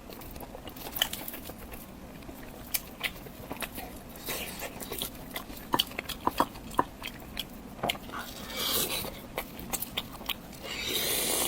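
Close-miked eating: biting and chewing food, with many sharp clicks from the mouth and food, and a louder hissy stretch near the end.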